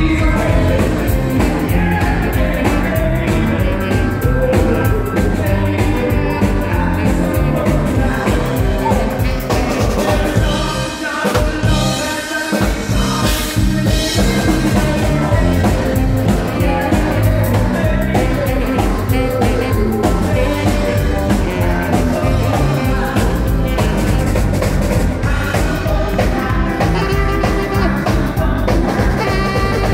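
Live band playing an upbeat song through a PA: drum kit, electric guitar and keyboard, with a male lead singer and female backing vocals. The bass and drums drop out briefly about eleven seconds in, then come back.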